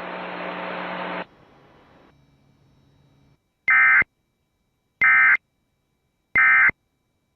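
Radio hiss with a low hum that drops away about a second in, then three short, identical bursts of Emergency Alert System digital data tones, about 1.3 seconds apart: the End of Message signal that closes the warning broadcast.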